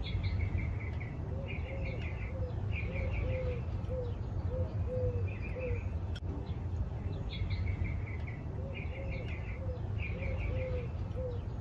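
Birds chirping: short runs of quick high chirps every second or so, with lower, softer repeated notes in between, over a steady low rumble.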